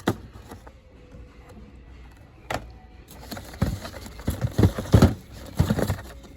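Toy car packages being handled: a sharp click at the start and another about two and a half seconds in, then irregular knocks and rustling through the second half.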